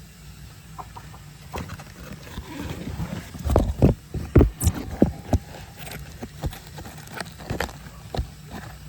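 Chickens clucking: a run of short, sharp calls that grows busiest and loudest in the middle, then thins out.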